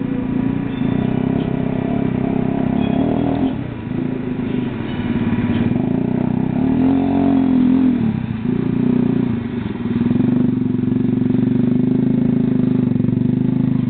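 Three-wheeled ATV engine running under load through shallow water and mud, its pitch rising and falling with the throttle, dipping briefly about four seconds in and again just past eight seconds.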